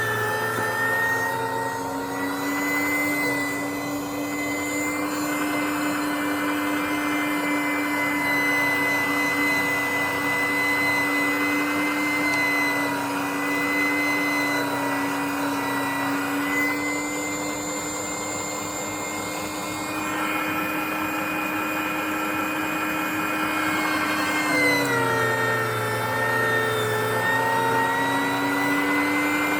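Electric meat grinder motor running with a steady whine. Near the end its pitch sags for a few seconds and then climbs back, the motor slowing under the load of bananas being forced through.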